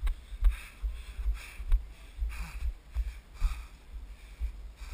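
Heavy walking footsteps of a person carrying a log on the shoulder, picked up as dull low thumps about twice a second through a body-worn action camera. Wind rumble and a few brief hissing gusts sit on the microphone.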